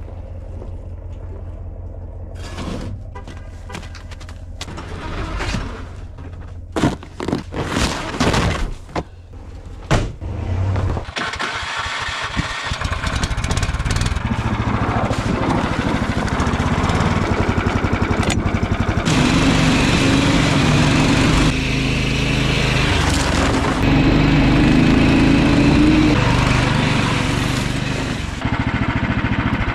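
Knocks and clatter over a low steady hum, then about ten seconds in a Snowdog tracked snow machine's small gasoline engine starts and runs steadily as it travels. The engine gets louder about two-thirds of the way through and eases off near the end.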